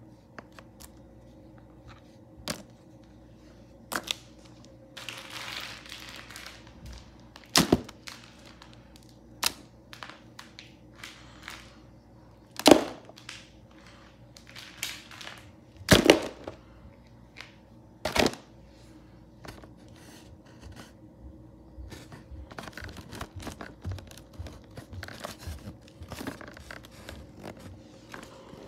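Plastic toy animal figures knocking and clattering against one another as they are rummaged through in a box: irregular light clicks and rustling, with a few louder knocks near the middle.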